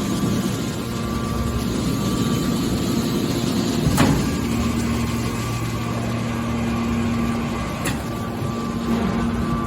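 Scrap metal hydraulic baler running: a steady machine drone with a held hum, a sharp knock about four seconds in and a lighter one near the end.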